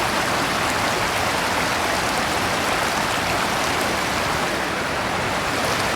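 Mountain stream rushing steadily down a rocky gorge, a loud even wash of water.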